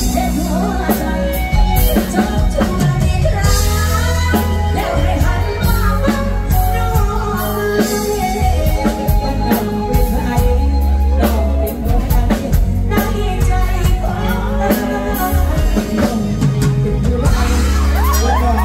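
Live band playing a song with a woman singing lead into a handheld microphone, backed by drum kit and bass through a concert sound system.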